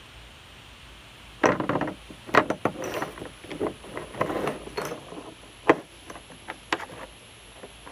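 Metal hardware (bolts, nuts and other rusty pieces) clinking and clattering against each other and the concrete as a hand rummages through and picks them up. An irregular run of clanks starts about a second and a half in, with one sharp knock a little before the end.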